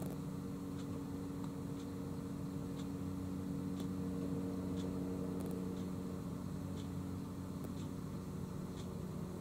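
Norman 20 Conquest motor cruiser's engine idling steadily, with a faint tick about once a second.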